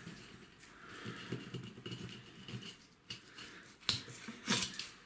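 Kitchen knife scoring the skin of a chum salmon on a plastic cutting board, making soft, uneven scraping strokes. Two sharper clicks come near the end.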